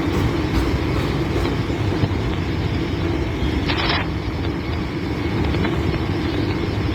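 Steady low rumble of a vehicle running, with a brief hiss about four seconds in.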